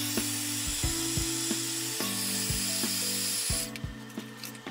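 Heat gun blowing a steady hiss while shrinking heat-shrink tubing over spliced throttle wires, switched off suddenly a little past halfway. Background music plays under it.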